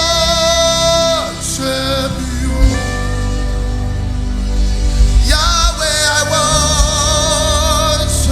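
Live gospel worship music: a singer holds long wavering notes over sustained instrumental accompaniment. The voice drops out a little after a second in and comes back about four seconds later.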